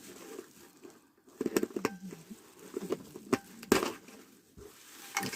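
A survival kit bag being opened and handled: rustling, with several sharp clicks and knocks from its fittings and contents.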